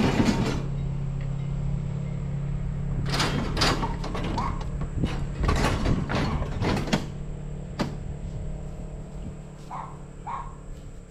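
Scrap metal piled in a pickup bed clanking and scraping in several short bursts as the load is handled and shifted.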